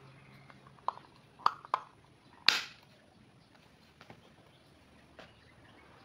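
Plastic clicks and knocks as a plug-in wireless doorbell receiver is handled, three sharp clicks in the first two seconds, then a louder scraping snap about two and a half seconds in as its plug is pushed into a power-strip socket. A few faint ticks follow; no chime sounds.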